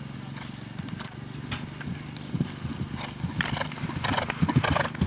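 Horse's hoofbeats on grass turf as it canters, then trots, past close by, getting louder from about two seconds in, with the loudest strikes near the end.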